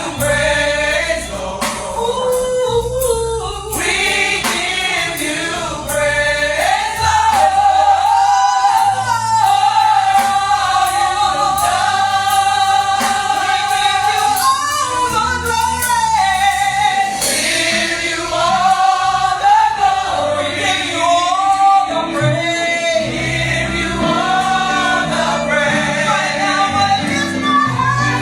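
A gospel choir singing with live band accompaniment, bass and drums under the voices, with one long held note in the middle.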